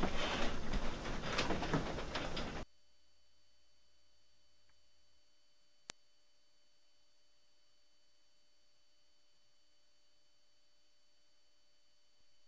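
A steady, very high-pitched electronic tone like a ringing in the ears, starting abruptly and holding at one pitch. Faint rustling and taps lie under it for the first couple of seconds.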